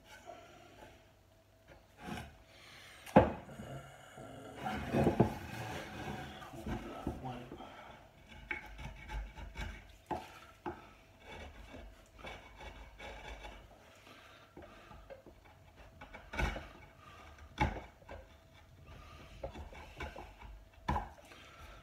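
A hand carving tool scraping and shaving along the edge of a wooden dining table in short, irregular strokes, with several sharp knocks; the loudest knock comes about three seconds in.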